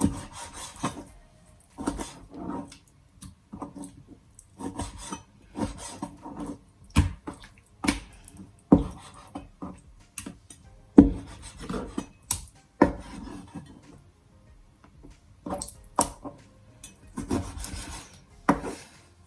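Knife cutting a whole raw chicken into pieces: irregular scraping strokes and sharp knocks.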